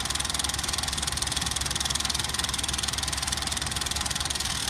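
Film projector running, a fast, even mechanical clatter over a steady low hum.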